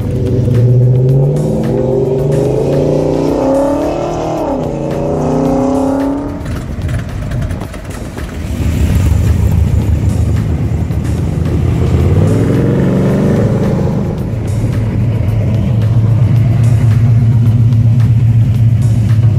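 Car engine revving up and down several times, then running steadily with one more rev about twelve seconds in.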